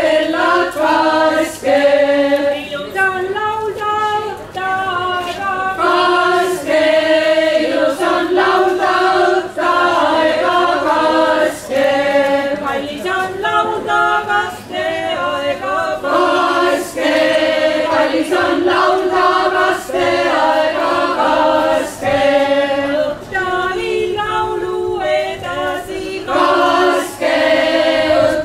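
Folk choir singing unaccompanied, phrase after phrase with short breaths between the lines.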